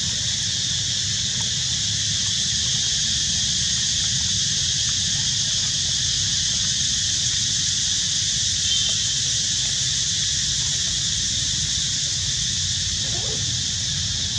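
Steady outdoor ambience: a constant high-pitched insect drone over a low rumble, with a faint short squeak near the end.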